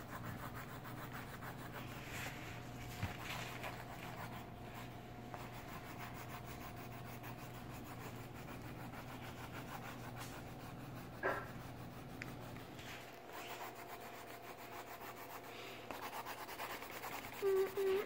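Yellow colored pencil shading back and forth on paper, a faint steady rubbing.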